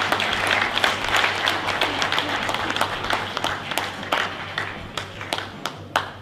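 Audience applauding, dense at first and thinning to a few scattered claps near the end.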